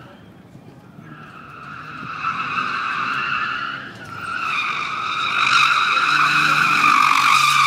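Nissan 300ZX turbo's tyres squealing as the car drifts, a high squeal that swells about a second in, dips briefly about halfway through, then comes back louder and holds near the end, with the engine running underneath.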